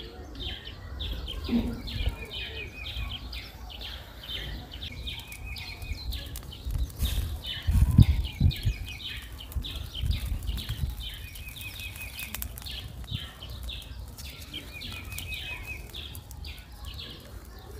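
Songbirds calling in the surrounding bush: a short repeated phrase with a fast trill, coming back every few seconds. Under it runs a steady low rumble, and there are a few low thumps, the loudest about eight seconds in.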